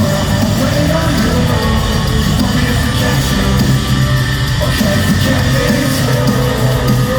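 Live pop-punk rock music played loud through a concert PA: distorted electric guitars, bass and drums, with some singing and yelling.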